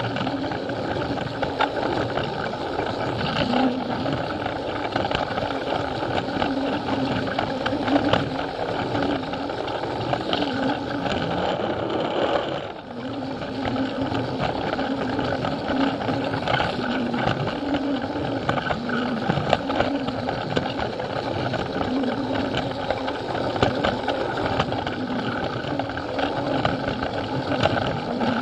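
Plarail battery-powered toy train's small electric motor running steadily, with its plastic wheels clicking over the track joints. The sound drops away briefly about twelve seconds in, then resumes.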